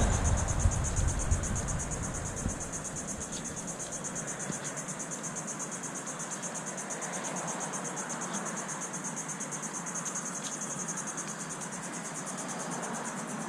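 Insects trilling steadily in a high, fast-pulsing chorus, typical of crickets. A low rumble dies away in the first couple of seconds, and a few faint clicks come through the chorus.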